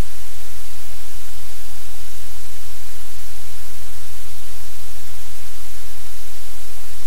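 Loud, steady static hiss over a low hum, with no other sound standing out from it: noise on the livecam's audio feed.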